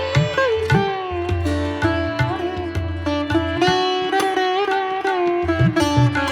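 Instrumental background music: a plucked string melody with sliding, bending notes over a steady drone, with deep drum strokes underneath.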